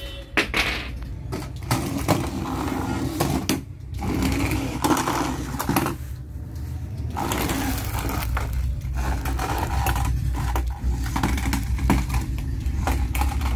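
Small electric motor of a battery-powered toy stunt car whirring, with its plastic wheels rattling and clicking on a hard counter top.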